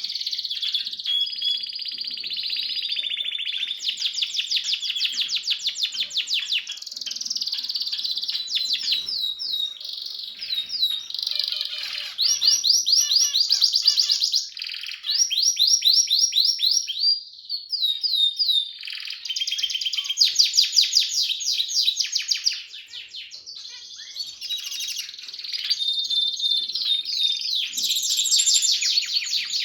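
Harz roller canary singing a long, nearly continuous song of rapid trills and rolls, with a couple of short lulls.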